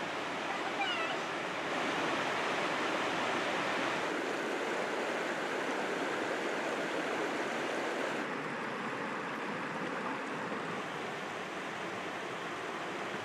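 Mountain trout stream rushing over rocks and riffles, a steady hiss of moving water whose tone shifts slightly a few times. A few faint, brief high chirps sound about a second in.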